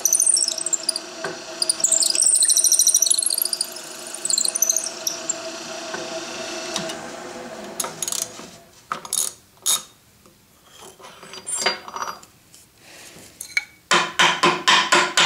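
Drill press running with its 15/64-inch bit boring deep into a wooden block, a high squeal from the cutting over the steady motor hum for about the first five seconds; the motor then winds down and stops about seven to eight seconds in. Scattered clicks and knocks follow as the ratchet on the step clamp is worked and the block is handled, ending in a quick run of knocks.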